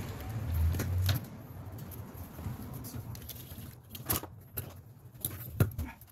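Handling noise from a large flat-panel TV and its cable on a workbench: a low rumbling shuffle in the first second, then scattered clicks and knocks, the sharpest about five and a half seconds in.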